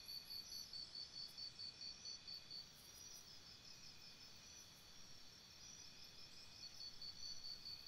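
Faint insect chirping: a high, evenly pulsed chirp about three or four times a second, which fades for a few seconds in the middle and comes back near the end.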